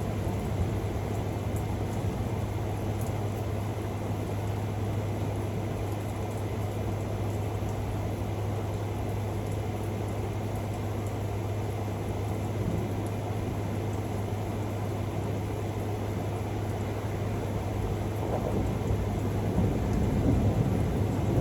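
Thunderstorm: steady rain with a low, continuous thunder rumble that grows a little louder near the end.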